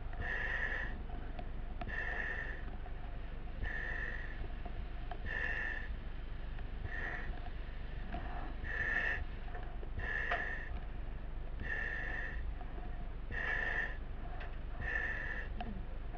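A firefighter breathing steadily through a breathing-apparatus mask: a short hiss from the valve about every second and a half, ten or so breaths in all, over a steady low hum.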